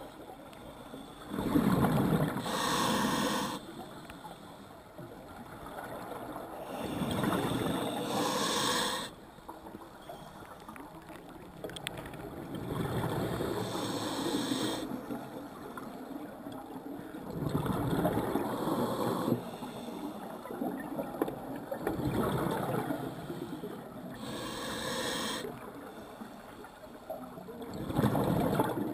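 Scuba diver breathing through a regulator underwater: a bubbling exhale and the regulator's hiss come in surges about every five seconds.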